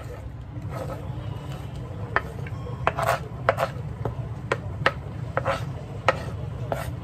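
A kitchen knife scraping chopped onion off a wooden cutting board into a bowl: irregular scrapes and sharp clicks of the blade on the board, sometimes a few a second.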